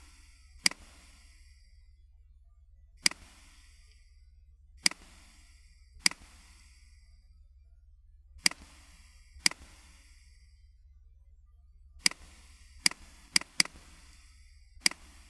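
Computer mouse clicking about eleven times at irregular intervals, with a quick run of four clicks near the end, over a low steady hum.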